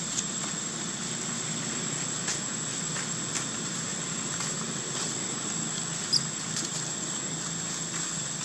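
Steady outdoor ambience of insects buzzing in one constant high tone, over a low steady rumble. A few light clicks of leaves or movement, and one short high chirp about six seconds in.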